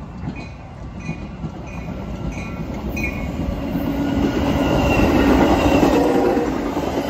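Metra commuter train passing, cab car leading, its stainless bi-level coaches' wheels rumbling on the rails, growing steadily louder as it nears and loudest about five seconds in.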